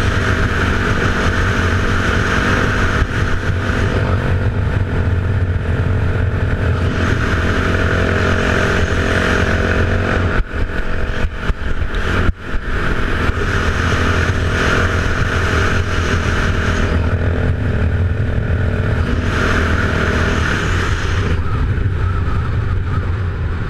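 A 2008 Yamaha YZ450F's single-cylinder four-stroke engine running at steady riding speed, heard from the rider's helmet. The sound dips briefly twice, about ten and twelve seconds in, and is a little quieter near the end.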